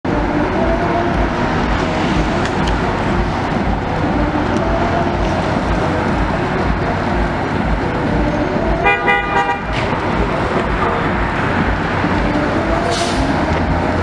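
Fire apparatus's diesel engine idling with a steady, low, pulsing rumble, with one short horn blast about nine seconds in and a brief hiss near the end.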